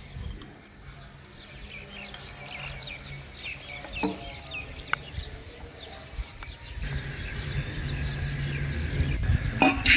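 Birds chirping, many short calls in quick succession. A low steady hum comes in about two-thirds of the way through, and a sudden louder sound comes right at the end.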